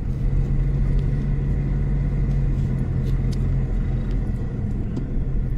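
Car driving on a road, heard from inside the cabin: a steady low rumble of engine and tyre noise, with a low hum that drops away a little past halfway.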